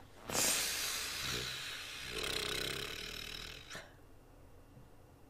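A man's long, heavy exhale, a sigh with a short voiced groan in the middle, lasting about three and a half seconds.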